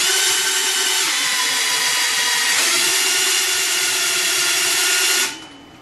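Cordless drill with a socket running steadily at speed, turning the input shaft of a Hydro-Gear T2 hydrostatic transaxle through the nut on its cooling fan, with a steady whine. It lets off about five seconds in and winds down.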